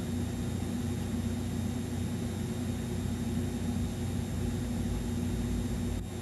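A steady low hum with a hiss over it, dropping slightly just before the end.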